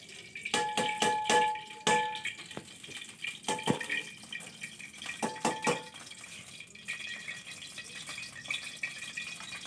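Steel cooking pot and its lid clinking as they are handled over a wood fire. Each clink rings briefly: four in quick succession in the first two seconds, then a few more around the middle. Under the clinks is a steady hiss and crackle of cooking.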